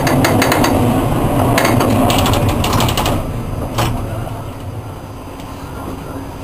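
Historic tram running on street track, rumbling and rattling, with a rapid run of clicks over the first three seconds and a single sharp click near four seconds, then running more quietly and steadily.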